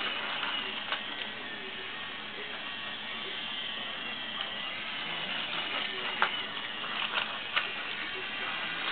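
Small battery-powered toy train's motor and gears whirring steadily as it runs along a plastic track, with a few sharp clicks, the loudest a little after six seconds in.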